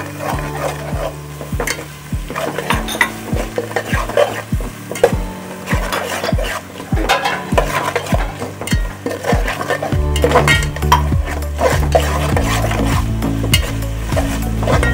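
A spoon stirring and scraping food that sizzles as it fries in a pan, with many quick clicks of the spoon against the pan, over background music.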